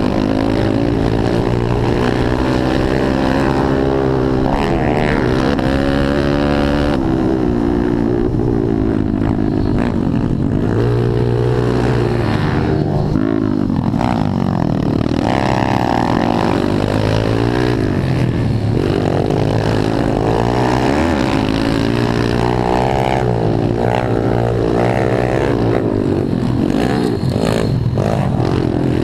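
Pit bike engine heard close up from the bike carrying the camera, revving hard with its pitch rising and falling over and over as the throttle opens and closes.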